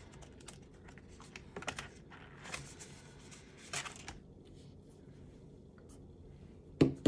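Paper banknotes and a clear plastic binder envelope rustling and clicking as the cash is tucked into the envelope and the sleeve is pressed flat. A few scattered light clicks and rustles, with a sharper click near the end.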